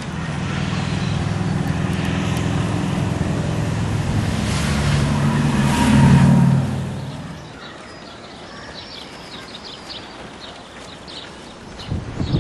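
An engine passes close by, growing louder until about six seconds in, then fading away.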